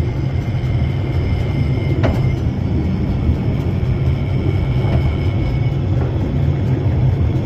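Shipley Glen Tramway's cable-hauled funicular car running along its rails: a steady low rumble, with a faint high whine and a single knock about two seconds in.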